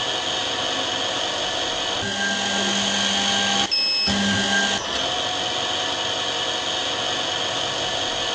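Spindle motor of a lens drilling machine running steadily while drilling holes in a spectacle lens, a constant whine over a hiss, with a short break about four seconds in.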